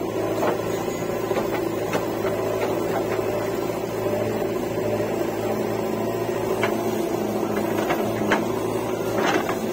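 JCB 3DX backhoe loader's diesel engine running steadily under hydraulic load while the backhoe digs and dumps soil, with several sharp clanks from the bucket and arm linkage.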